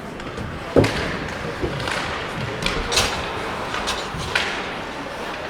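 Ice hockey rink sounds: a few sharp knocks and thuds of sticks, puck and players against the boards, the loudest about a second in, over steady rink noise.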